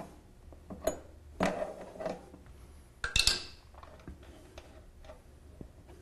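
Two wrenches clinking against the toilet supply-line nut and the shutoff valve as the nut is unscrewed. There are a few scattered clinks and knocks, the loudest cluster about three seconds in.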